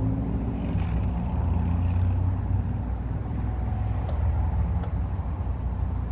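Steady low engine rumble of a road vehicle running.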